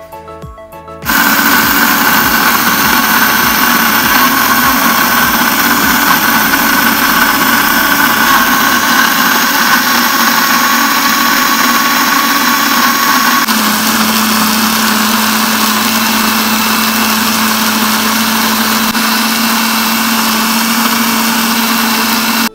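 Electric blender running at full speed, wet-grinding chopped tomatoes, mint, green chillies and onion with a little water into chutney; a loud, steady motor whir that starts about a second in and changes pitch about two-thirds of the way through.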